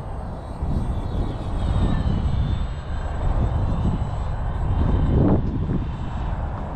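Electric RC model F8F Bearcat flying past, its motor and propeller whine gliding in pitch as it passes and loudest about five seconds in, over a heavy low rumble.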